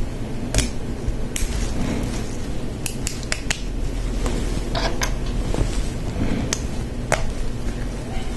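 Lego Technic plastic parts clicking as pins and beams are handled and pressed together: scattered sharp clicks, with a quick run of several about three seconds in, over a steady low hum.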